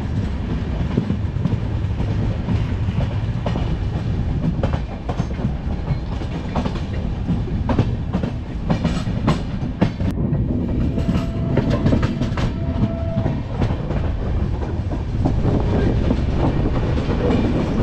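Passenger train coaches running out of a station: a steady low rumble with irregular clicks and clacks of the wheels over the rail joints and points, heard from an open coach door.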